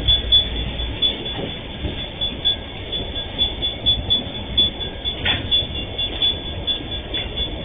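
A train of empty freight wagons rolling past. A steady rumble with repeated, irregular wheel clacks.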